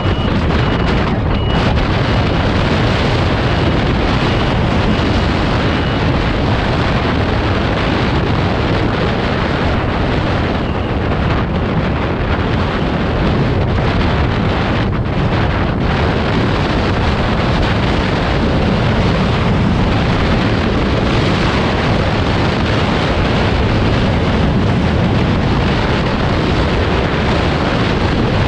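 Loud, steady wind rushing over the microphone while travelling at speed.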